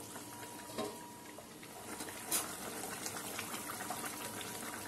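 Fish curry bubbling at a rolling boil in a metal kadai, with a couple of faint light clicks.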